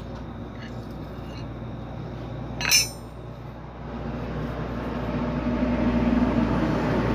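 A metal tool clinks once against the engine's crankshaft and connecting-rod area about three seconds in, a sharp tap that rings briefly. Over the last few seconds a steady mechanical noise grows louder in the background.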